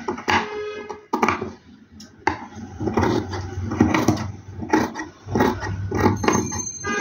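Large steel tailor's shears snipping through velvet fabric, a run of short, irregularly spaced snips as the seam allowance of a stitched V-neck facing is trimmed.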